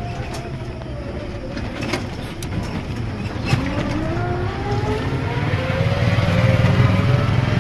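Riding inside a small open vehicle: its motor tone dips early on, then rises steadily over the last few seconds as it speeds up, over a low road rumble with a few knocks and rattles.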